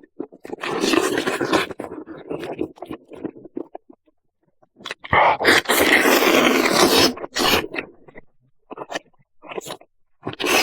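Close-up eating sounds of a person biting, tearing and chewing meat from a turkey leg. Two long noisy stretches come about half a second in and around five seconds in, with short wet smacks near the end.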